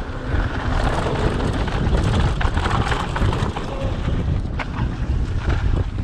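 Wind buffeting the microphone of a camera on a mountain bike riding fast down dry dirt singletrack, with tyres rolling on the dirt. Scattered sharp clicks and rattles from the bike jolting over bumps.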